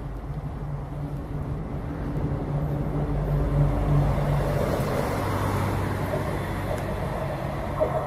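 Class 185 electric locomotive approaching at the head of a tank-wagon freight train: steady humming tones from its traction equipment over a running rumble that grows louder as it nears, with a sharp click near the end.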